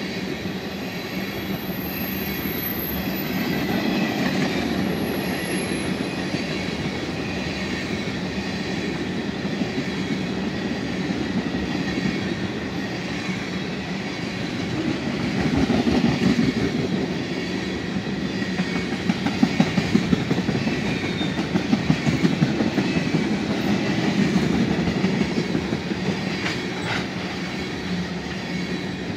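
Loaded tank cars of a freight train rolling past: a steady rumble of steel wheels on rail, with a rhythmic clickety-clack as the trucks cross rail joints that swells and fades, sharpest about two-thirds of the way in.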